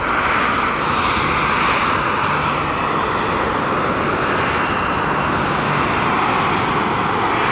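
Harrier jump jet's Pegasus turbofan running at high power with its thrust vectored straight down for a hover and vertical landing: a loud, steady jet rush that eases slightly and swells again near the end.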